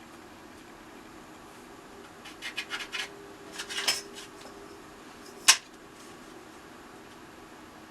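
A marking tool scratching short strokes on thin plywood, several quick strokes in two bursts as the centre is marked out, followed by one sharp click about five and a half seconds in.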